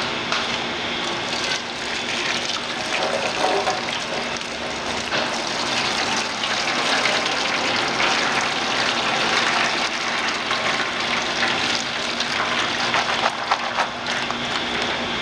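Boiling water poured in a steady stream from a kettle over sliced onion and green pepper in a plastic colander, splashing and draining into a stainless steel sink; the scalding is done to take the sharpness out of the onion. A washing machine on its spin cycle hums steadily underneath.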